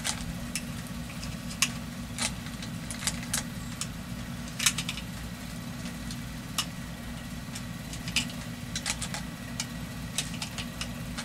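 A .45 pistol magazine being loaded by hand, each cartridge pressed into it with a sharp metallic click, at an irregular pace. A steady low hum runs underneath.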